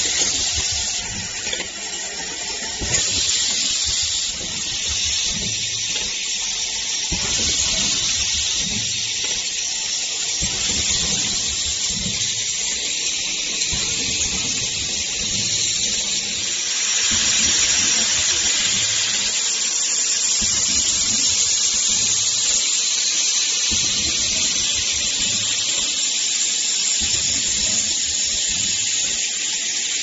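Bag-on-valve aerosol can filling and crimping line running: a steady hiss over uneven low mechanical noise.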